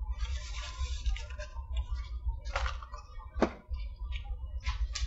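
Paper napkin rustling as it is rubbed across a mouth and beard, followed by a few short, sharp clicks and taps over a steady low hum.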